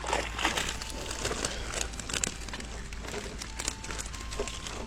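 Close handling noise: crinkling and rustling with many small scattered clicks, as gear or a catch is handled while packing up from fishing.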